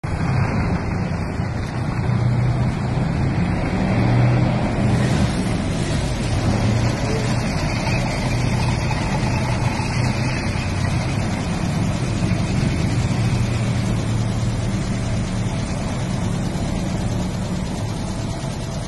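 Tracked armoured military vehicles driving along a street: a continuous low engine drone with track and road noise. It is loudest about four seconds in and eases off slowly after that.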